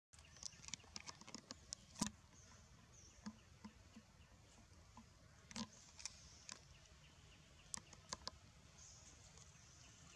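Near silence with scattered faint clicks and rustles of dry leaves and twigs as macaques move about on the leaf litter. The clearest click is about two seconds in, and a faint high hiss comes in near the end.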